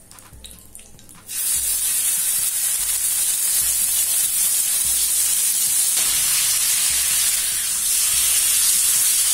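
Marinated boneless chicken pieces sizzling in hot oil on an iron tawa. After a faint crackle, the sizzling starts suddenly about a second in as the chicken hits the oil, then holds loud and steady.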